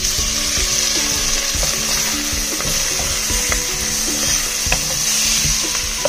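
Food frying in hot oil in a pan, a steady sizzling hiss with a few faint pops.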